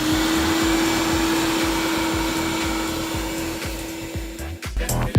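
Shop vacuum running with a steady motor whine and rushing air, stopping suddenly about four and a half seconds in. Background music with a beat plays underneath.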